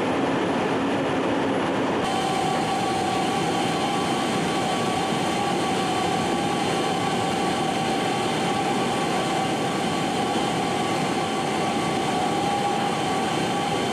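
Steady drone inside a C-17 cargo hold in flight: jet engine and airflow noise with a steady high whine through it. For about the first two seconds a different jet-aircraft noise with a low hum is heard, cutting off abruptly into the cabin drone.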